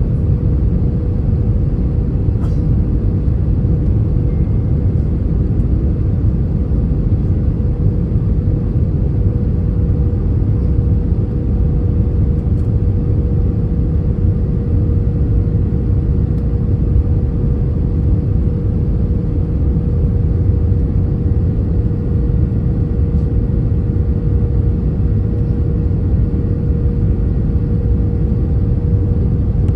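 Airbus A320-200 cabin noise on approach: the steady rumble of engines and rushing air, with a constant hum over it.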